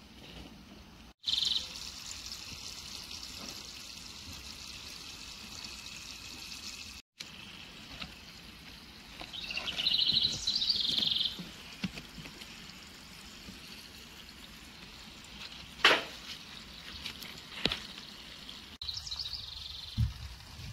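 Small birds chirping in a garden, with one loud run of quick chirps about halfway through and a steady high hiss in the first few seconds. A single sharp click comes about three-quarters of the way in.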